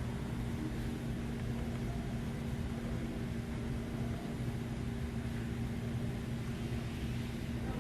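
SUV engine running at a steady idle, a continuous even hum.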